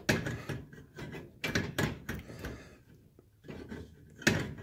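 A few metal clicks and knocks as a gas stove burner is worked into place over its gas tubes, the loudest near the end.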